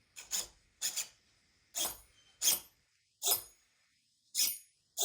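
RC truck servo whirring in about eight short, rasping bursts as it is driven back and forth by the radio, checking clearance both ways.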